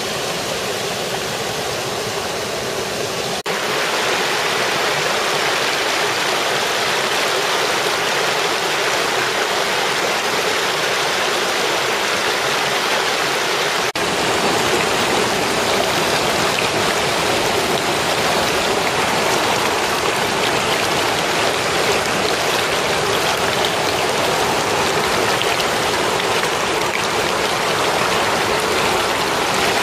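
A small mountain stream rushing over rocks close by: a steady, even rush of water that steps up a little louder about three seconds in.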